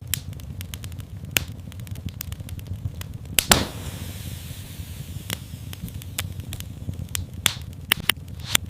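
Fireplace fire burning with a steady low rumble and scattered sharp crackles and pops. A loud pop about three and a half seconds in is followed by a short hiss that fades away.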